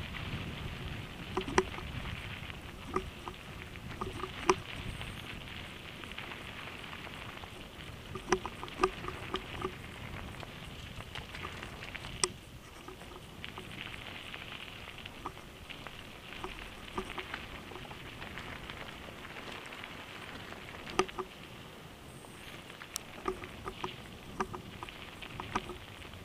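Mountain bike rolling fast down a gravel road: a steady crunch and hiss of tyres on loose stones, with sharp clacks and rattles from the bike jolting over bumps, some in quick clusters.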